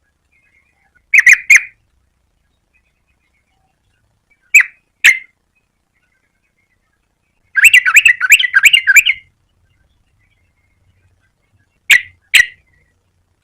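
Yellow-vented bulbul calling: short notes in pairs every few seconds, with a quick run of about a dozen notes near the middle.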